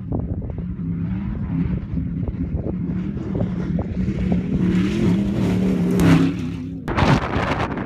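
A Ford Raptor-based prerunner truck's engine, running steadily under throttle as the truck drives toward and close past the camera, getting louder until it passes about six seconds in. Near the end a sudden loud rush of wind noise hits the microphone.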